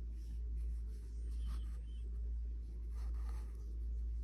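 Faint rubbing and rustling as white yarn is tugged through the stitches of a plush chenille crocheted doll's head to take up slack, over a steady low hum.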